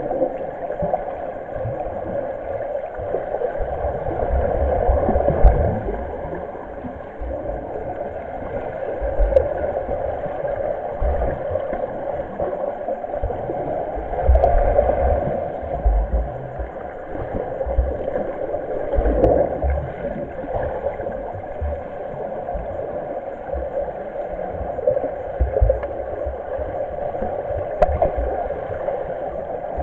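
Swimmers' kicks and strokes heard through the water by an underwater camera: steady muffled splashing and rushing water with irregular low thumps.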